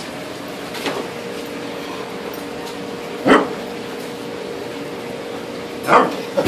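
Pembroke Welsh corgi giving short, sharp barks at a live lobster: a faint one about a second in, then a loud single bark about halfway and another near the end. A steady background hum runs underneath.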